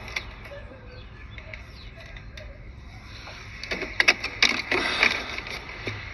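Scattered light clicks, then a burst of sharp clicking and knocking about four seconds in: parts and tools being handled in a car's engine bay during a thermostat replacement.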